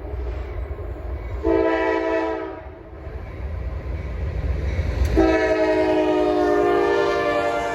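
CSX freight locomotive's air horn sounding a short blast about a second and a half in, then a long blast starting about five seconds in, over the low rumble of the train.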